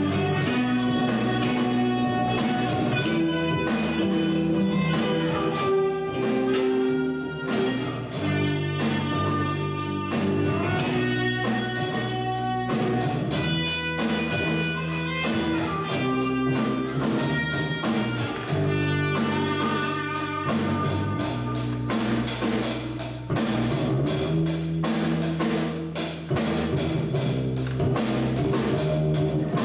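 Live rock band playing an instrumental passage: electric guitars and bass over a drum kit, with no vocals.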